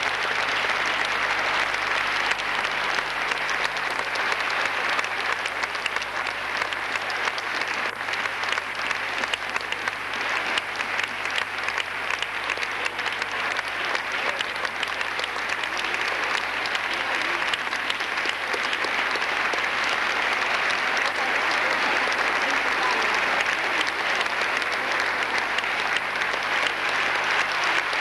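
Theatre audience applauding, a dense, steady clapping that holds at one level throughout.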